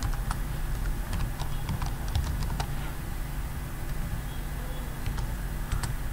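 Computer keyboard keys clicking in short, irregular runs of typing, over a steady low hum.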